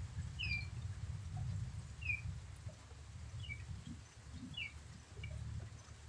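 A bird chirping in short falling notes, roughly one a second, over a steady low rumble.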